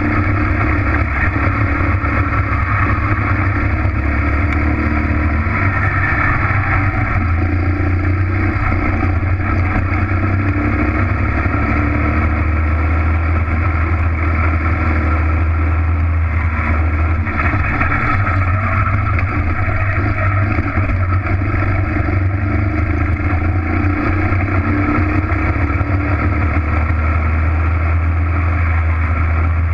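Racing kart engine running hard close to the microphone, loud and steady, its pitch shifting a little with throttle through the corners.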